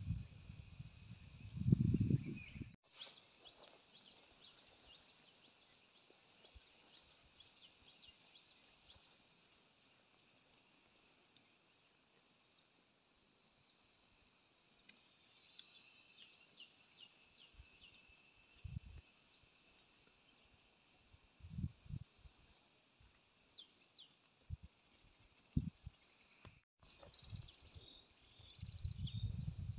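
Faint, steady high-pitched chirring of insects in the grass and trees, with a low rumble in the first few seconds and a few brief low thumps in the second half.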